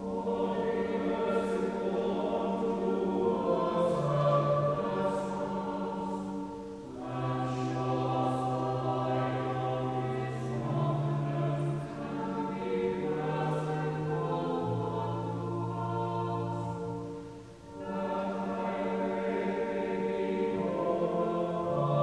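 Choir singing in long phrases over sustained organ chords, the phrases breaking briefly about 7 seconds in and again near 18 seconds.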